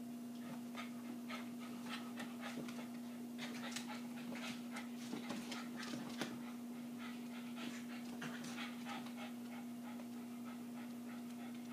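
Silky Terriers panting in short, quick puffs while they wrestle, the sounds thinning out near the end, over a steady low hum.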